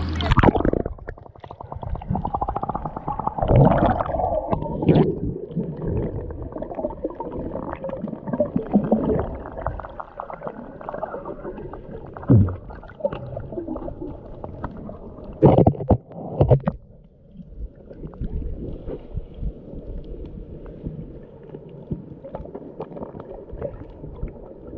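Muffled water sounds through a GoPro Hero 7's bare microphone in the sea: gurgling and sloshing with dense fine clicking and a few louder swishes.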